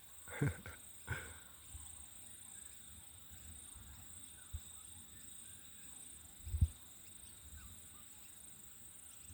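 Insects droning steadily and high, in a regular pulsing rhythm, with two short soft sounds in the first second or so and two low thumps later.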